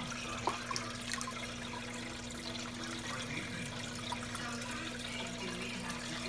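Aquarium water trickling and splashing steadily, with a steady low hum underneath.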